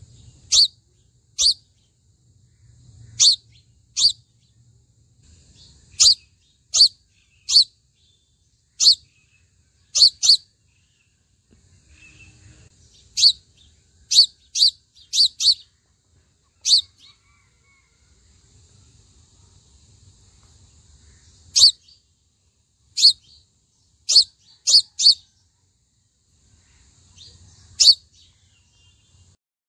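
Sunbird giving short, sharp, high chip calls, one at a time or in quick runs of two to four, with pauses of a second or more between.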